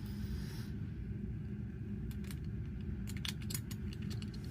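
Faint small clicks and taps of a metal watch case back being handled and fitted onto the watch case, a cluster of them about three seconds in, over a steady low hum.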